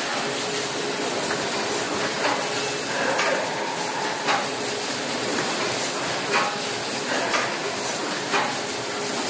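Automatic tablet and capsule blister packaging machine running: a steady hissing machine noise with a knock about once a second as it cycles.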